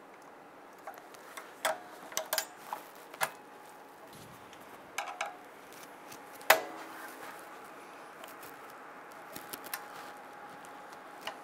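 Metal clicks and clinks of a brake spring tool working a steel return spring onto parking brake shoes, a dozen or so scattered taps, some ringing briefly. The sharpest click comes about six and a half seconds in.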